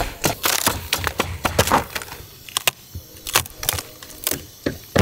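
Claw hammer knocking and prying painted wood siding and trim off a chimney: an irregular series of sharp knocks and wood cracking and splintering.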